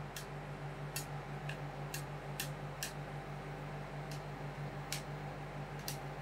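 Light, sharp clicks of metal spatulas tapping and scraping on the cold plate of a rolled ice cream machine, about nine at an uneven pace, over the machine's steady low cooling hum.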